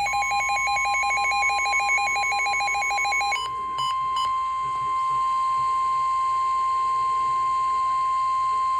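NOAA Weather Radio warning alarm tone: one steady, loud high tone (the 1050 Hz attention signal that precedes a warning message). For about the first three seconds a rapid electronic alert beeping sounds over it, ending in a few short blips.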